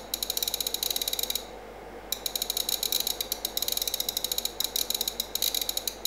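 Detented adjust knob of a digital bench power supply clicking rapidly as it is turned to lower the output voltage, many clicks a second. The clicking stops about a second and a half in and picks up again about two seconds in.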